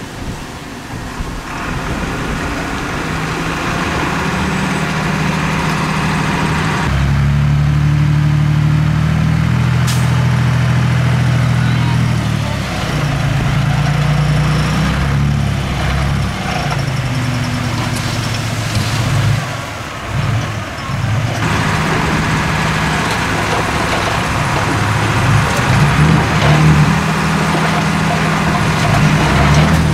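Diesel engine of a Komatsu D31P small bulldozer working under load as it pushes dirt, its pitch rising and falling with the throttle. It grows louder about seven seconds in, eases off briefly about two-thirds of the way through, then picks up again.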